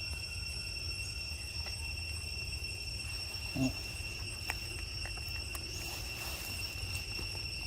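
Steady high-pitched insect drone over a low outdoor rumble, with one short low call about three and a half seconds in.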